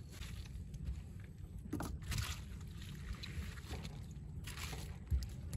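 Steady low wind rumble on the microphone, with rustling and light knocks as wet leaves and catch are picked through in a wooden boat's hold, and a dull thump about five seconds in.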